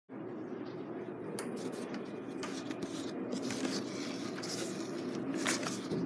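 Cardboard fan box being handled and opened: scattered rustles, scrapes and knocks of cardboard and packing over a steady low room hum.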